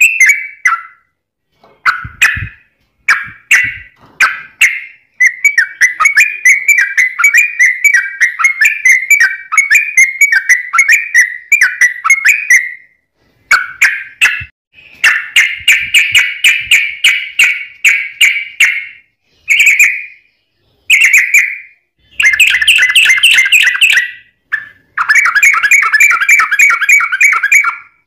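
Yellow-vented bulbul (trucuk) singing fast, tightly packed runs of whistled chattering notes, broken by a few short pauses.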